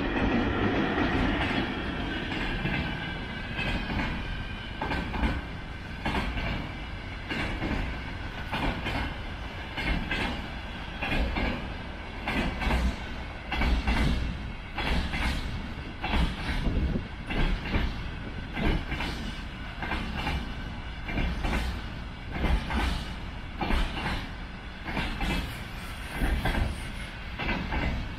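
Container freight train rolling past, its wagon wheels clacking over the rail joints in a steady repeating rhythm over a continuous rumble. A high whine of several tones fades out over the first few seconds.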